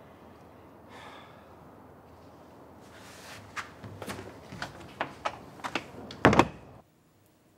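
A door being handled and pulled shut: a run of clicks and knocks from the handle and latch, then a heavy thud as the door closes, about six seconds in.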